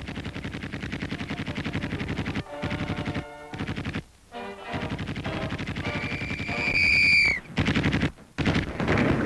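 Machine-gun fire in long rapid bursts with short pauses between them. About two-thirds through, a high whistling tone holds for over a second and drops away as it ends.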